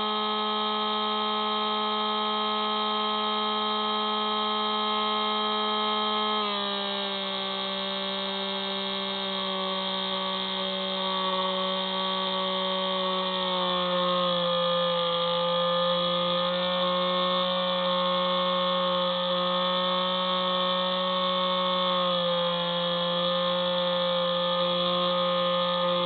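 Spyhawk FPV plane's electric motor and propeller, whining steadily as heard from the onboard camera. The pitch steps down about six seconds in and again about thirteen seconds in as the throttle eases, then lifts a little about twenty-two seconds in.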